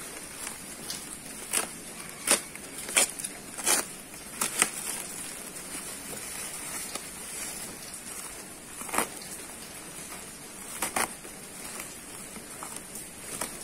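Bubble-wrap packaging crinkling and crackling as it is pulled apart and cut open by hand. A cluster of sharp crackles comes in the first few seconds and two more follow later.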